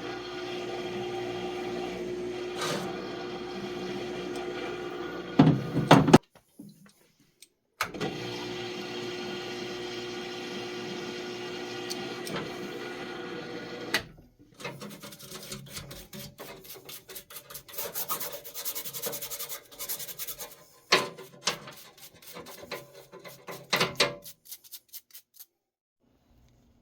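Cleaning out a solvent parts washer: a steady hum broken by a few loud knocks, then rough scraping and scrubbing strokes with clattering.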